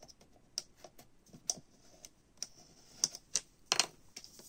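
Irregular light clicks and taps of a clear plastic ornament shell being handled, as a paper disc is pressed into it with a small pointed tool. A cluster of louder clicks comes about three seconds in.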